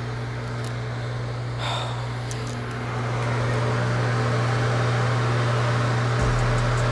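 A steady low machine hum, like a small motor or fan running, with a rushing noise that swells about three seconds in.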